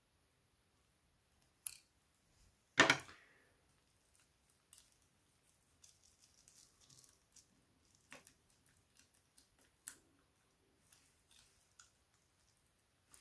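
Small clicks and taps of hand tools and smartphone parts being handled on a table, scattered and irregular, with one much louder knock about three seconds in.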